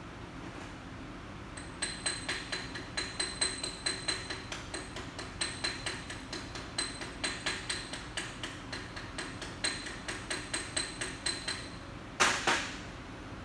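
Chipping hammer tapping on a stick-weld bead on a steel hydraulic cylinder, knocking off the slag between passes: a quick run of sharp ringing metal taps at about four a second, ending with one louder hit.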